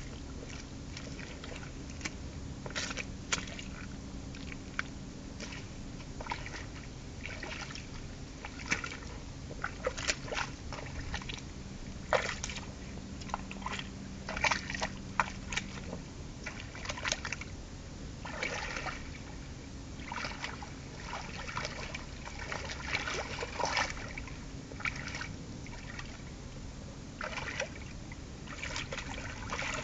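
Rubber boots squelching and sloshing in thick wet mud and puddle water as someone steps about, in irregular bursts with short pauses between.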